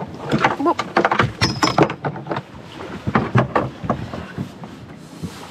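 A run of knocks, clinks and clatters from things being handled on a sailboat's deck as a swimmer hands up a recovered drone and climbs back aboard, with a few short voice sounds in the first two seconds.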